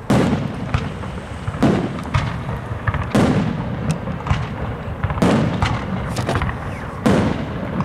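Aerial firework shells bursting in a display: five loud booms, each with an echoing tail, spaced about one and a half to two seconds apart, with smaller cracks and pops between them.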